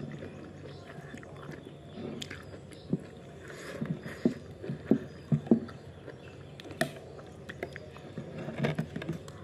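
Eating sounds: a metal spoon scraping and clinking against a ceramic bowl, mixed with chewing and mouth smacks. They come as irregular short clicks, with one sharper clink about seven seconds in.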